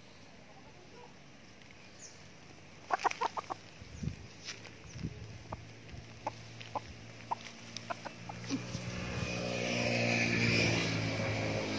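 Chicken clucking in short single clucks: a quick run of them about three seconds in, then one every half second or so. A low steady drone swells up over the last few seconds.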